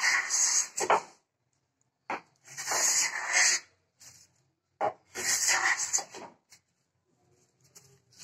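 Wooden Krenov-style smoothing plane with a high-angle (50°, York pitch) blade shaving a board: three push strokes, each a noisy swish of about a second to a second and a half. The second and third strokes begin with a sharp tap.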